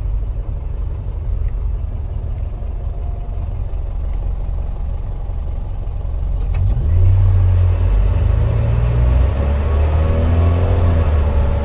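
The mechanically injected diesel engine of a 1992 Toyota Coaster bus, heard from inside the driver's cab. It runs as a low, steady rumble at first, then about six and a half seconds in it gets louder as the bus pulls away under load, its pitch climbing slowly.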